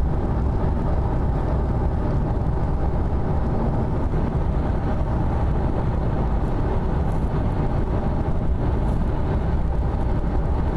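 Steady low rumble of a car driving along a road, heard from inside the cabin: engine and tyre noise holding an even level.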